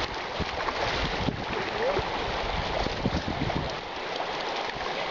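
Creek water rushing steadily, with irregular low thumps through it.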